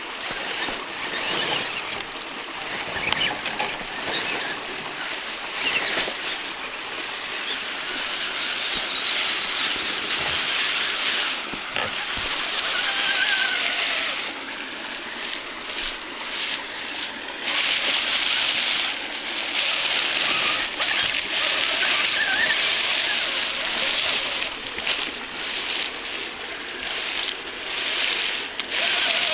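Radio-controlled rock crawler trucks crawling through dry fallen leaves and over rocks: irregular rustling and crunching of leaves under the tyres, louder in the second half.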